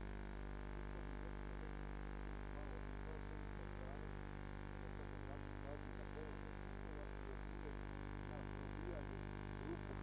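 Steady electrical hum with hiss from the recording itself, with faint indistinct sounds behind it.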